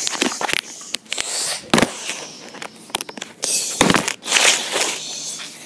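Handling noise from a handheld recording device being picked up and moved about: a string of irregular knocks and clicks with short rubbing scrapes against the microphone.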